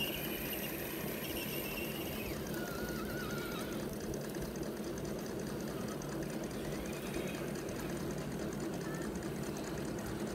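Small electric motor and gearbox of a scale RC crawler whining as it creeps over grass and leaves, with a faint tone that wavers in pitch during the first few seconds.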